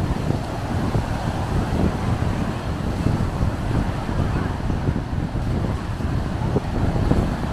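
Wind buffeting the microphone, a steady low rumbling noise with no distinct events.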